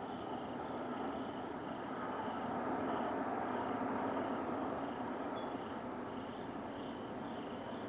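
The unexplained roar heard from the sky, a steady rumbling noise without a clear pitch that swells to its loudest a few seconds in and then eases a little. Insects chirp in short, evenly spaced pulses over it.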